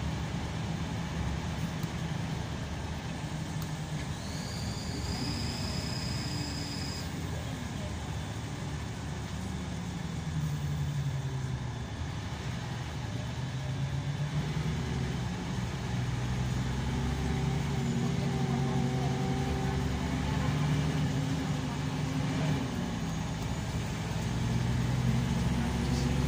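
Scania K340EB coach's diesel engine and road noise heard inside the passenger cabin while under way. The engine note drops and climbs again a couple of times. A thin high whine sounds for about three seconds near the start.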